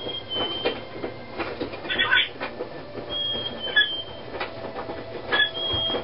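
Double yellow-headed Amazon parrot making short, high, squeaky whistles, with a loud harsh squawk about two seconds in.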